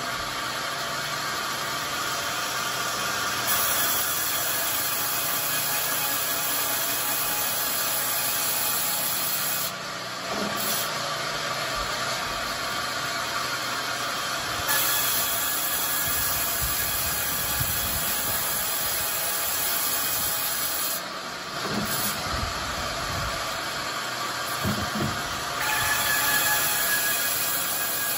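Homemade bandsaw mill running and sawing through a coconut-wood beam: steady sawing noise from the blade with the machine's drive behind it. The level steps up and down several times as the cut goes on, with a few low knocks in the second half.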